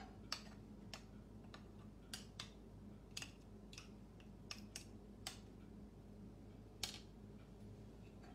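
Faint, irregular light clicks and taps of metal cutlery against a stainless steel mixing bowl and the countertop, over a low steady hum.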